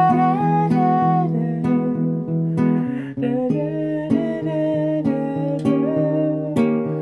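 Song music: an acoustic guitar strumming chords, with a melody of held, gently bending notes above it.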